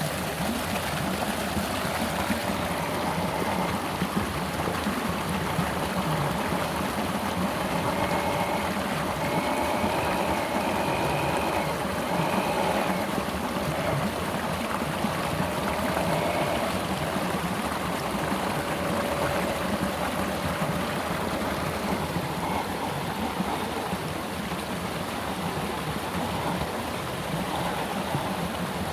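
Steady rush of flowing water, like a stream over rocks, with the whine of an MN 128 RC crawler's small electric motor and gears rising and falling in pitch through the middle.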